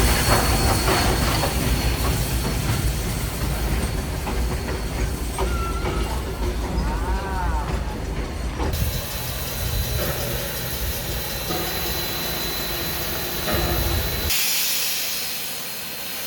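Vintage steam train running: a heavy low rumble under a steady hiss of steam. The sound changes abruptly about nine and fourteen seconds in, and near the end the rumble drops away, leaving mostly hiss.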